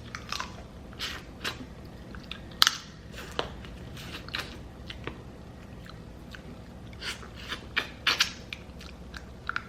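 Crab legs being cracked open and eaten close to the microphone: irregular sharp cracks and crunches of shell with chewing, the loudest cracks a few seconds in and again near the end.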